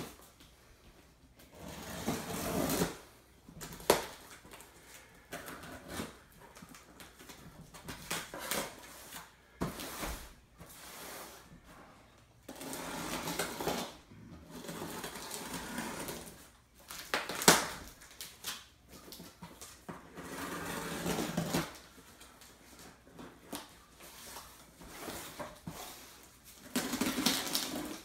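Scissors slitting and scraping along the packing tape on a cardboard box, in repeated rasping strokes a second or two long, with the cardboard rustling and a few sharp clicks.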